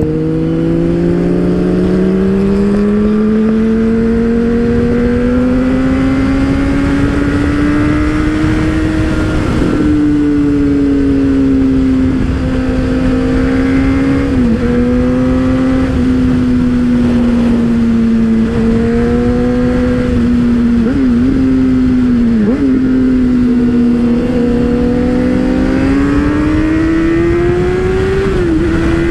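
Motorcycle engine running under way, its pitch climbing over the first several seconds, then holding fairly steady with a few brief dips and rising again near the end, over a low rushing noise.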